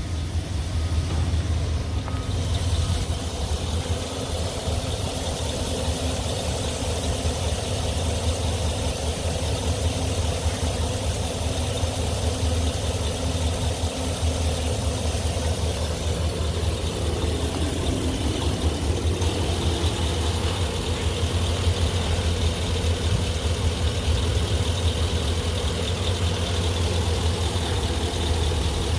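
Chevy Silverado 3500HD pickup's engine idling steadily, a low even hum.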